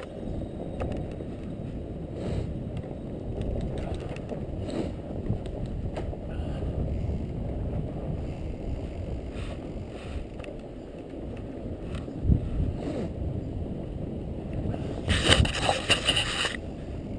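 Fat bike riding through snow: the wide tyres rolling over snow make a steady low rumble, with scattered clicks and rattles from the bike. Near the end comes a louder hissing noise lasting over a second.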